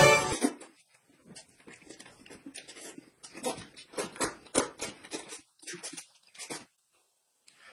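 Close-up mouth sounds of a man eating: irregular wet smacking, biting and chewing as he tears into a piece of meat from his bowl, with a short pause near the end.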